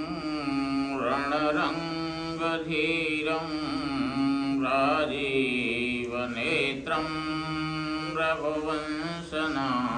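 Devotional mantra chanting, sung in long melodic phrases with brief breaks between them.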